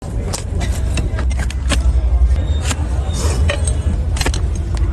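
A steady low rumble with irregular sharp clicks and clinks scattered through it.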